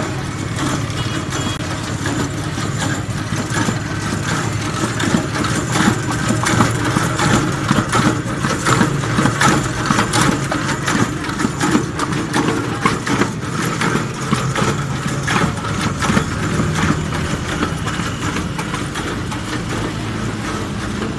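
Small engine running steadily, driving a pestle-and-bowl grinder that is grinding almonds and poppy seeds into paste, with frequent irregular knocks and clatter from the grinding.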